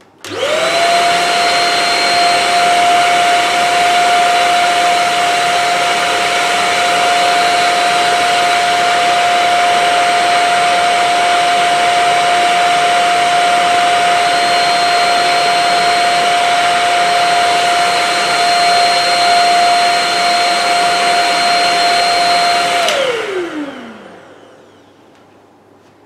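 Shark Rocket stick vacuum's motor switched on and running at full speed with a very high-pitched whine over a loud rush of air, measured at 86 decibels. Near the end it is switched off and the whine falls in pitch as the motor spins down.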